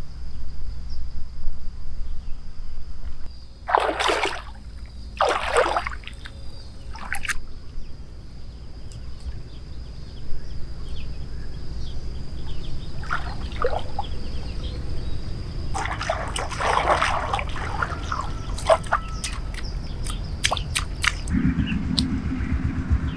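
Shallow water sloshing and trickling as a person wades and pulls up plants by hand, over a steady high insect trill. A low hum comes in near the end.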